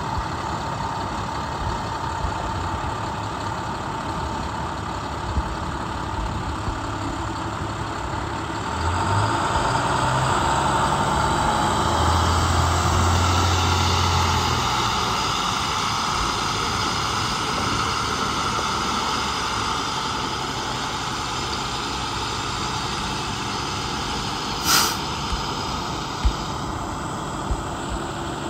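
A 2009 International WorkStar 7300's 7.6-litre MaxxForce diesel engine idling, then revving up about a third of the way in as the truck pulls away, and running on steadily as it drives. A brief sharp hiss comes near the end.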